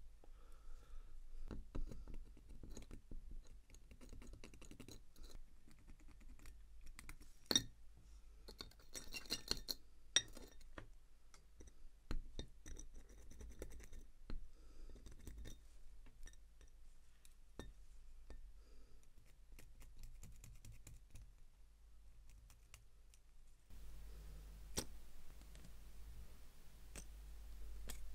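Scattered light clicks, taps and small metallic clinks of watchmaker's tools and watch parts being handled on a workbench, irregular and close, with a brief cluster of quick clicks about a third of the way in.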